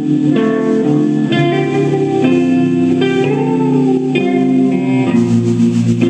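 Live band music led by electric guitars ringing out sustained chords and notes that change about every second, with one note bending in pitch a little after three seconds.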